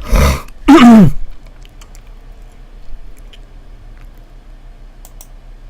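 A man's breathy exhale, then a short voiced hum that falls in pitch, both in the first second. After that a faint steady microphone hum with a few faint clicks from computer keys or a mouse.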